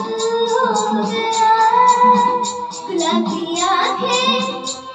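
A boy singing a Hindi film song into a microphone over a recorded backing track with a steady ticking beat.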